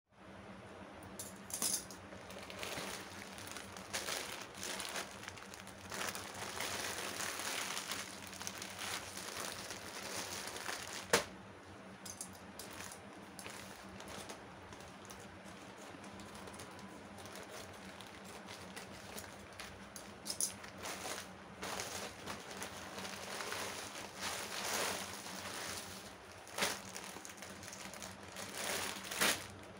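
Plastic courier mailer bag crinkling and rustling in irregular bursts as it is handled and opened, then a clear plastic packet rustling as it is drawn out, with one sharp click about eleven seconds in. A faint steady low hum runs underneath.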